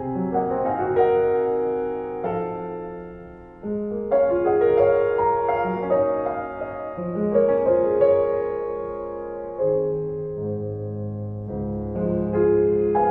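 Slow piano music with held notes and chords that change about every second, softening briefly before a new chord about three and a half seconds in.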